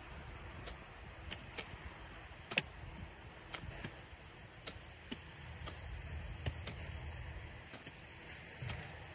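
Grub hoe blade chopping into grassy soil and scraping it. There is a short, dull strike about once a second at uneven intervals, the loudest about two and a half seconds in.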